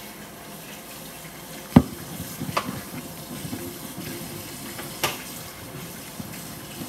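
Thick peanut butter cookie dough being stirred in a stainless steel bowl: a steady stirring noise with a few sharp clinks of the utensil against the metal bowl, the loudest a little under two seconds in and smaller ones about a second and about three seconds later.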